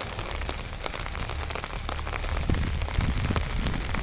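Heavy rain falling on a waterlogged road: a steady hiss dotted with many sharp drop hits, over a low rumble that swells for about a second past the midpoint.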